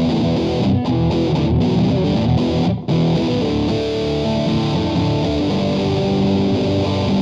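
Outro music led by an electric guitar, with a brief drop in level about three seconds in.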